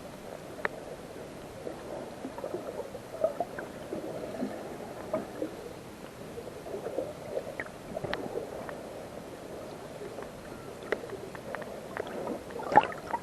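Seawater sloshing and gurgling around an action camera in its waterproof case, with bubbling and scattered small knocks against the housing. One louder knock comes near the end.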